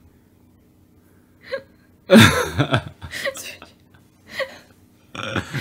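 A person's loud breathy gasp about two seconds in, followed by a few short breathy sounds.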